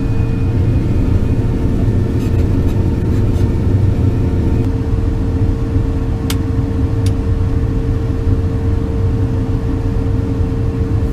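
Cab of a Miller Nitro 5333 self-propelled sprayer under way: a steady low engine drone with a whine held on one pitch, and two short clicks about six and seven seconds in.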